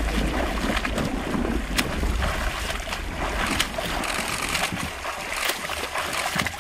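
A swimmer's arm strokes splashing in open water every second or two, over wind rumbling on the microphone, strongest in the first couple of seconds.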